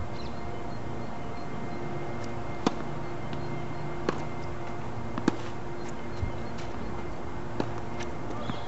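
Tennis ball struck by rackets and bouncing on a hard court during a rally: a handful of sharp pops a second or two apart, over a steady background hum.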